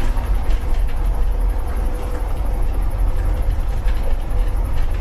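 1950 truck's engine running steadily with a low, even rumble.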